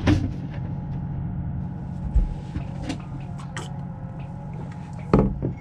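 Steady low drone of the tugboat's running machinery heard inside a small cabin. Over it come a few knocks of a mug and hands on a table, with a louder knock near the end.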